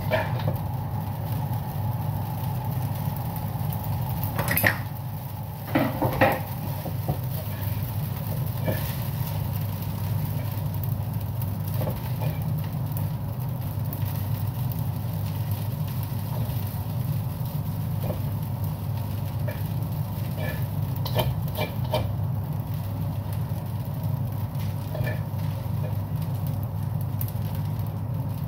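Steady hum of a kitchen range-hood fan, with a spatula and chopsticks scraping and clinking against a wok as rice noodles are tossed. The sharpest knocks come about five and six seconds in and in a quick cluster around twenty-one seconds.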